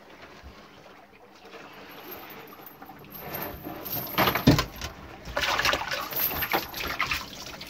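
A single loud thump about halfway through, then water splashing and pouring as cut fish pieces are rinsed in a plastic colander basket over a metal pot.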